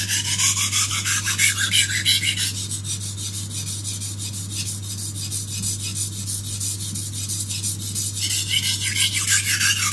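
Steel knife blade stroked back and forth on an oiled Fine India oilstone: a steady, rhythmic scraping of steel on stone in an oil slurry, grinding in the edge bevel.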